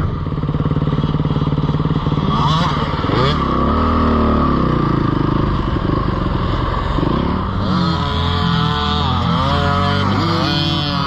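Dirt bike engines running close, with the revs rising and falling several times, most often in the second half. Children's 50cc minibikes are among them.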